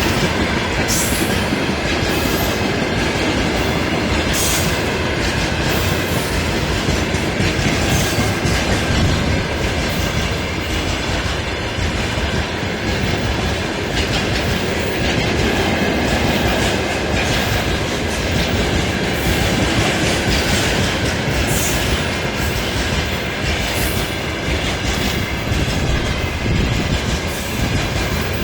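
Freight train rolling past: a steady rumble with repeated clacks of wagon wheels over rail joints.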